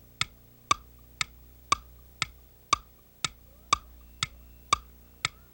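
Game-show countdown clock sound effect ticking evenly, about two ticks a second, timing the 5 seconds allowed to demonstrate the answer.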